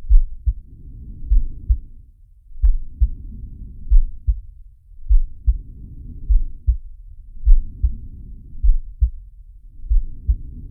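Cartoon heartbeat sound effect: deep, low lub-dub thumps in pairs, a little faster than once a second, under a muffled whooshing that swells and fades in a slow, even rhythm like breathing.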